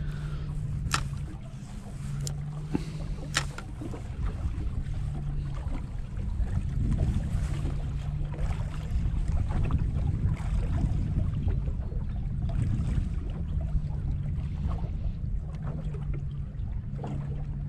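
Wind on the microphone: a steady low rumble, with a few sharp clicks in the first few seconds.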